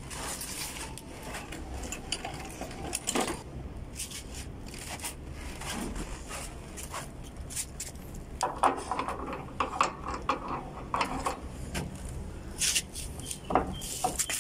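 Steel adjustable wrenches clinking and scraping as they are picked up and fitted onto a brass flare nut on an air conditioner's liquid-line service valve. The clinks are scattered at first and come thick and fast in the second half.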